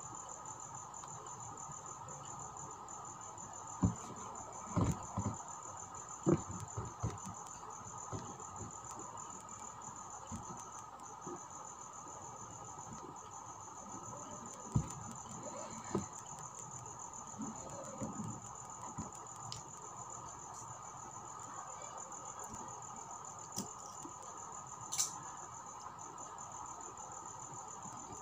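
Steady chirring of crickets in the background, with scattered soft taps and clicks from hand embroidery: the needle and thread working through taut silk fabric.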